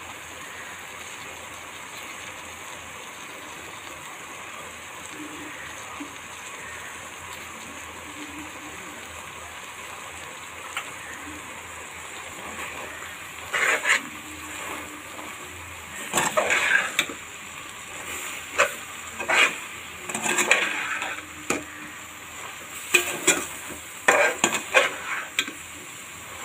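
A slotted metal spoon stirring and scraping against the side and bottom of a metal cooking pot, mixing tripe with spices and butter, in irregular bursts from about halfway through. Before that, only a steady low hiss.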